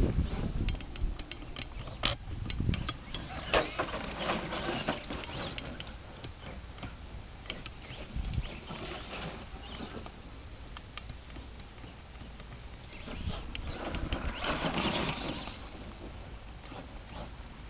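ECX Amp MT radio-controlled monster truck with a brushed 20-turn motor on a 3S battery, driven in bursts of throttle over dirt and grass, its tyres scratching and crackling with many small clicks. There is a sharp click about two seconds in and a louder, hissing surge from about thirteen to sixteen seconds.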